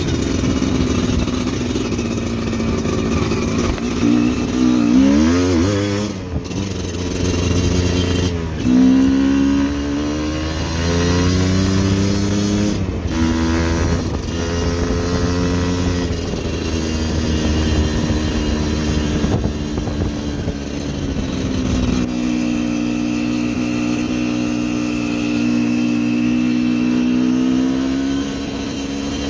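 Motorcycle engine running under load while ridden, its revs rising and falling with the throttle and gears: a sharp rise about eight seconds in, then a steadier held pitch near the end.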